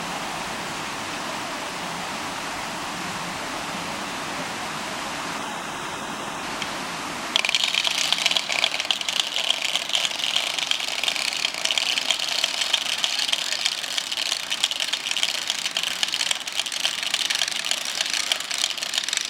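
Wooden Easter ratchets and clappers (Ratschen) rattling together in a dense, rapid clatter that starts suddenly about seven seconds in, sounded at the hour in place of the church bells. Before it there is only a steady background hiss.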